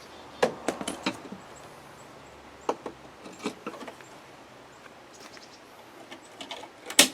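Scattered light clicks and taps of a broken Land Rover Defender door handle and its push button being handled and worked apart, with one sharper click near the end.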